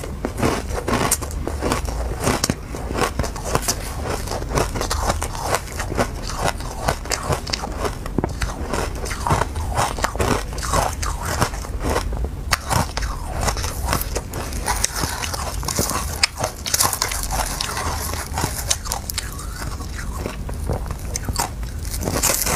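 Chewing and crunching a mouthful of powdery frosted ice, a dense, irregular run of crisp crunches; near the end a fresh bite into a frosted ice bar.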